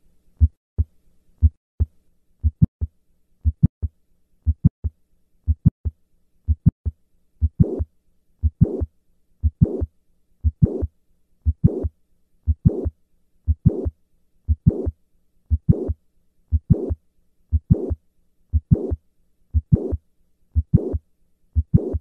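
Heart sounds of mitral valve prolapse, about one beat a second. At first there are only short low heartbeat thumps. From about seven seconds in, each beat also carries a louder, longer, higher sound between them: the mid-systolic click and late systolic murmur of a prolapsing mitral valve.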